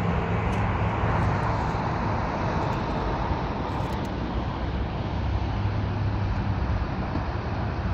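Steady hum of distant road traffic heard from high up through an open window.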